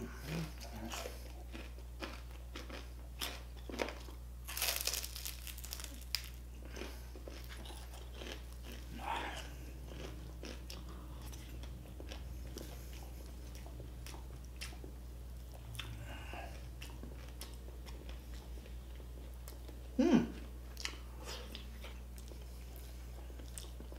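A person biting and chewing crispy deep-fried pork: scattered crunches, busiest about five seconds in, with one louder, sharper crunch about twenty seconds in.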